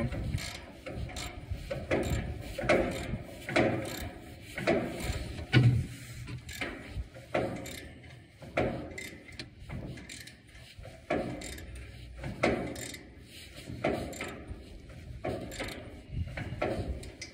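Ratchet wrench clicking in short repeated strokes, roughly one a second, as a bolt is tightened down on a tractor's dash panel.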